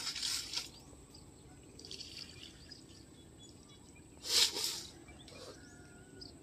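Metal basin dipped into a river and lifted out full, water splashing and pouring off it in three bursts, the loudest about four and a half seconds in.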